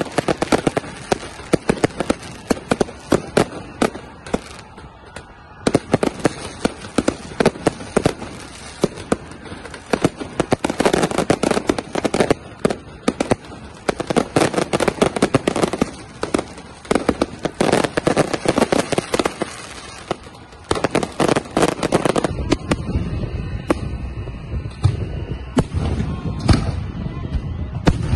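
Fireworks and firecrackers going off in a dense, continuous run of sharp cracks and bangs. A steady low rumble joins in for the last six seconds or so.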